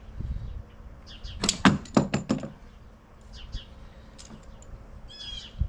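Metal hand tool clinking and knocking on a mower blade bolt and the rusty steel deck of an upturned lawn-tractor mower deck, a quick run of sharp metallic clicks about a second and a half in. Birds chirp faintly near the end.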